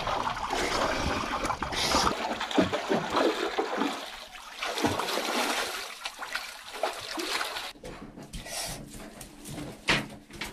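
Water splashing and sloshing as people swim and wade through a small pool, strongest in the first few seconds and then dying down, with a few light knocks near the end.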